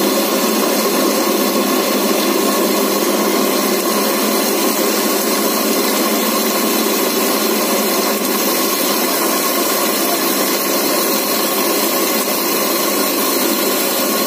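Electric mixer grinder running steadily at high speed, its stainless steel jar grinding a dry mixture into powder.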